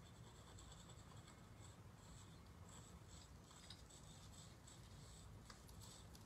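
Faint, repeated scratching of sidewalk chalk being drawn across concrete.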